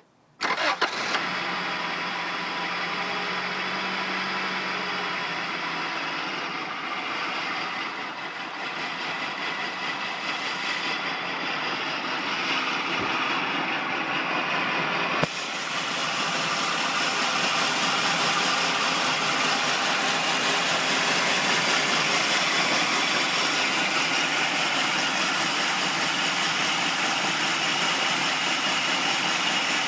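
1999 Integra engine starting about half a second in, then idling steadily; the owner calls it a rough idle. About halfway, a click, and the engine sound becomes louder and brighter.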